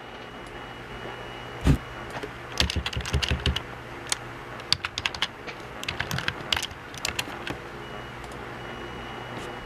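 Plastic Rubik's cube being twisted by hand, its layers clicking in quick irregular runs, over a steady low hum.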